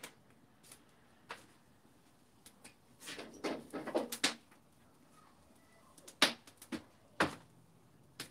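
Cookware being handled on a backyard fire-pit grill: scattered knocks, a short run of clattering and scraping about three seconds in, then two sharp knocks near the end.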